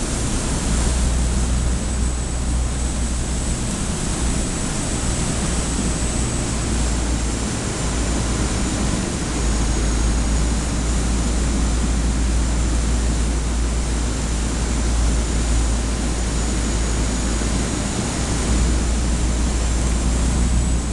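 Pilot boat running at speed: a steady rush of water along the hull and wind noise, over a deep, unsteady rumble.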